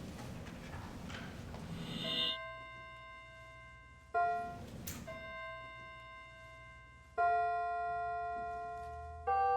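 Piano playing slowly and softly: single notes or chords are struck about every two seconds and left to ring and fade.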